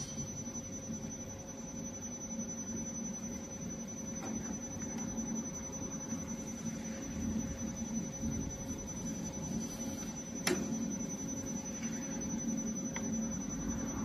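Spiral duct forming machine running, a steady machine hum with a constant high tone above it, as the sheet-metal strip is rolled into spiral duct. A single sharp click about ten and a half seconds in.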